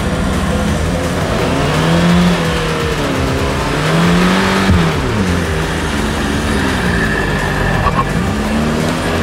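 Car engine revving, its pitch rising and falling several times.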